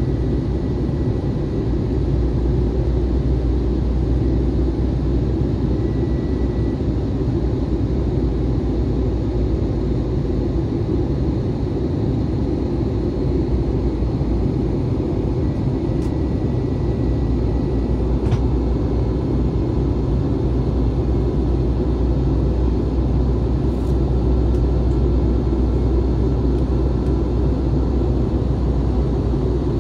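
Steady low rumble of an Airbus A321 in flight, heard inside the passenger cabin: engine and airflow noise. A few faint ticks come through it.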